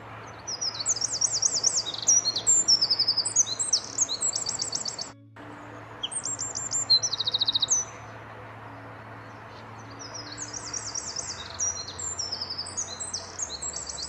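Eurasian wren singing: loud, rapid, high-pitched trills and twittering phrases in three bursts, a long one of about four seconds, a short one around six seconds in, and another starting about ten seconds in.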